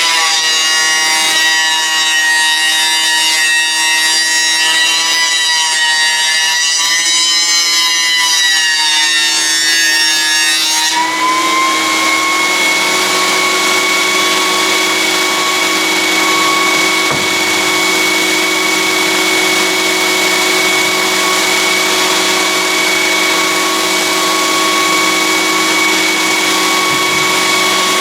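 Cutech 6-inch jointer planer with a helical carbide-insert cutter head, running and cutting wood. For about the first eleven seconds the motor's whine sags and wavers under load as a board feeds through. It then rises back to a steady, even whine as the cutter head runs free.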